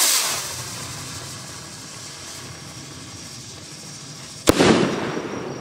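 Stick rocket from the Avenger assortment: the tail of its launch whoosh fades as it climbs, then a single sharp bang about four and a half seconds in as it bursts, followed by a rumbling echo that dies away.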